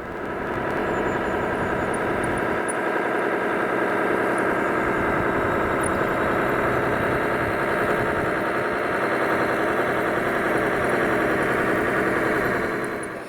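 Radio-controlled model construction vehicle running: a steady mechanical hum and whine whose pitch wavers up and down, cutting off suddenly at the end.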